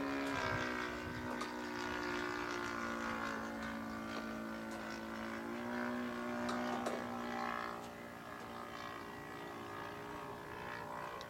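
OS 120 Surpass four-stroke glow engine driving a 16x6 propeller on a Great Planes Gee Bee R2 model plane, running steadily in flight. Its pitch dips a little just after the start, and it grows fainter near the end.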